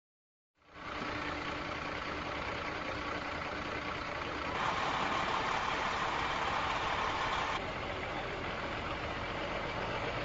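Silence, then a large vehicle's diesel engine idling begins abruptly, a steady low running sound with a faint hum. It grows a little louder for a few seconds in the middle.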